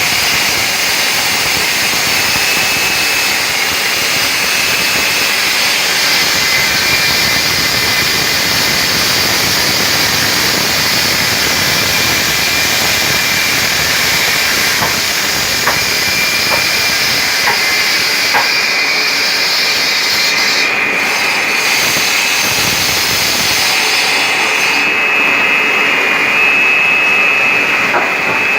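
Stone-cutting machine for polygonal cuts, running with a steady loud hiss and a high, even whine.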